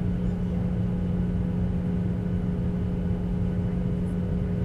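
Jet engines of a Boeing 737 running at taxi power, heard inside the cabin: a steady low rumble with a constant hum.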